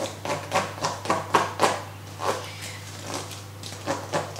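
A utensil stirring thick buttercream in a clear plastic tub: quick, irregular scrapes and knocks against the tub's sides and bottom, several a second.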